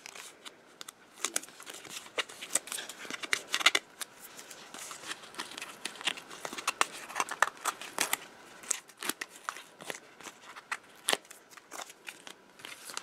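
Paper and cardstock being handled by hand: scattered small crackles, rustles and ticks as the backing liner is peeled off double-sided tape on a card panel.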